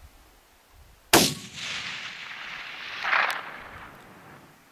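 A single shot from a Savage 10FP .308 bolt-action rifle, firing ball ammunition, about a second in. A sharp crack is followed by a long report that rolls away over about two seconds, with a second swell of sound near the end of it.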